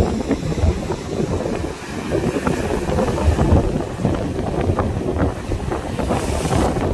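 Gusty storm wind from Hurricane Henri buffeting the microphone, with the rush of ocean surf underneath.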